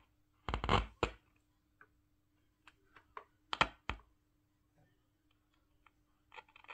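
A few sharp clicks and knocks of things being handled on a workbench, two clusters about three seconds apart, over a faint steady hum.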